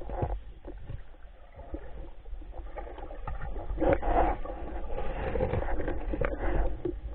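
Water sloshing and gurgling over a steady low rumble, swelling to its loudest about four seconds in.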